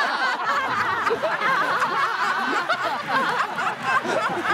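A studio audience and panel laughing together, many voices overlapping in a steady wave of laughter after a punchline.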